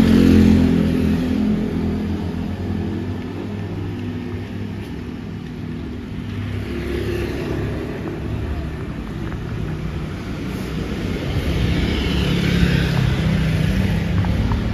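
Street traffic: a light garbage truck's engine idling steadily, with motor scooters passing close by, loudest at the start and again about twelve seconds in.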